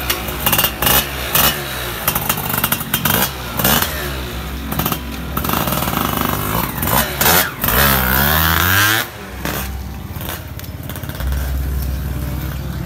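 Yamaha F1ZR two-stroke motorcycle engine running through an aftermarket AHM exhaust, revved in a string of short throttle blips, then a longer rev that rises and falls about eight seconds in, before settling to an idle near the end.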